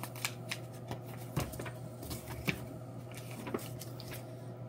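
A paperback picture book being handled and its pages turned: a few soft paper rustles and taps, the clearest about a second and a half in and again about two and a half seconds in, over a steady low hum.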